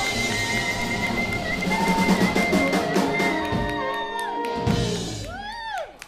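Live blues-rock band, electric guitars and drum kit, playing the closing bars of a slow blues: held guitar notes over the drums and a drum fill, then the music dies away about five seconds in.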